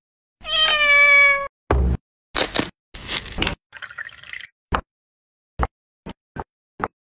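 A cat meows once, a single call of about a second that falls slightly in pitch. It is followed by a string of short noisy bursts and sharp clicks.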